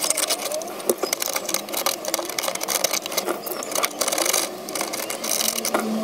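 Hardened expanding foam being cut and scraped level with a knife against the refrigerator's plastic liner: a fast run of scratchy strokes.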